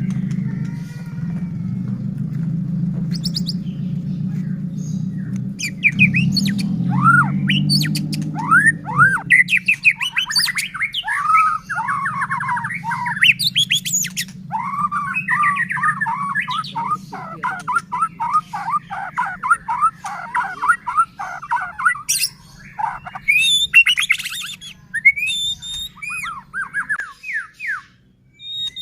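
White-rumped shama (murai batu) in full song: fast runs of varied sweeping whistles mixed with sharp clicking and rattling notes, starting about six seconds in. A steady low hum runs underneath, stronger for the first nine seconds, then fainter until it stops near the end.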